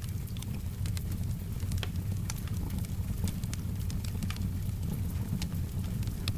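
Wood fire crackling, with irregular sharp pops and ticks over a steady low rumble, and soft rain hissing in the background.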